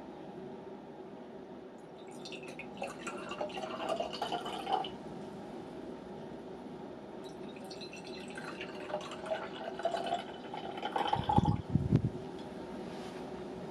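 Carbonic acid solution poured from a round-bottomed glass flask into two Erlenmeyer flasks, one after the other, in two spells of splashing and trickling. A short low thud comes near the end of the second pour.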